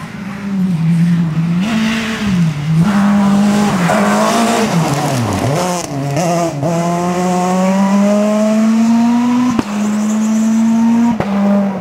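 Super 2000 rally car's two-litre naturally aspirated four-cylinder engine at high revs: the pitch falls and rises as it brakes and downshifts for a corner, then climbs steadily as it accelerates away, with a quick drop in pitch at an upshift about two thirds of the way through.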